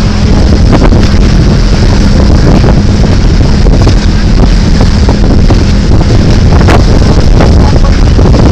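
Small motorized outrigger boat's engine running steadily at speed, with loud wind buffeting the microphone throughout.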